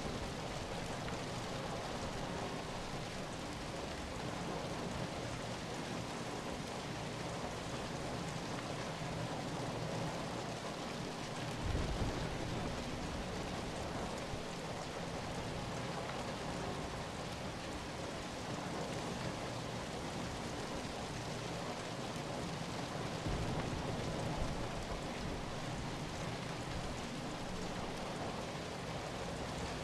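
Steady rain falling, an even continuous hiss of many drops, with a brief low swell about twelve seconds in.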